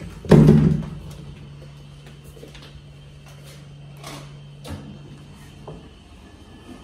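A heavy thump of a hotel room door swinging shut just after entry, followed by a steady low hum that cuts off abruptly near the end, with a few light clicks.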